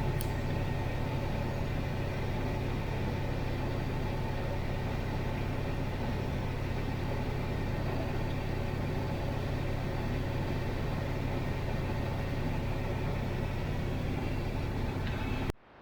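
Combine harvester running steadily while shelling corn, a constant engine and machinery drone. It cuts off suddenly at the very end.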